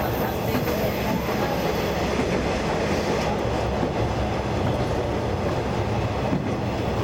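Diesel railcar engine idling steadily while the train stands at a platform, a low even hum with a constant pitch.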